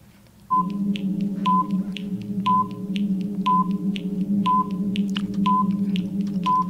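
Quiz countdown timer music starts about half a second in: a steady low drone under a short high beep and tick once a second, timing the contestants' thinking time.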